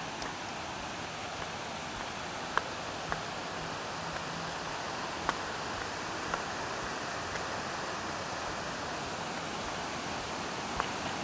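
Steady rush of a creek and waterfall, growing slightly louder toward the end, with a few brief sharp taps over it.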